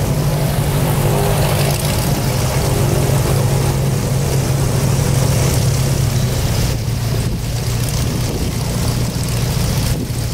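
Airboat's engine and air propeller running steadily as the boat takes off.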